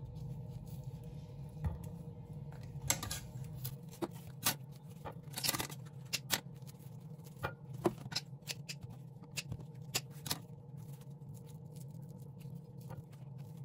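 Hands peeling ripe saba bananas: the thick skins tear and snap in irregular clicks and crackles, busiest through the middle and sparser near the end.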